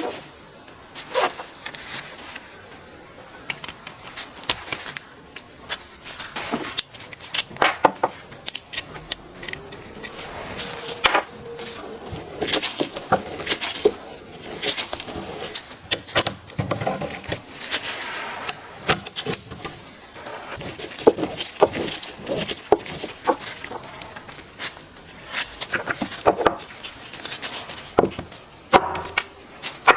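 Irregular sharp clicks, taps and clinks of small hard parts and tools being handled, with a few louder knocks scattered throughout.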